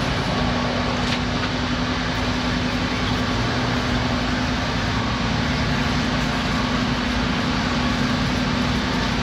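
Steady mechanical drone from running shop machinery, with a constant low hum that sets in just after the start.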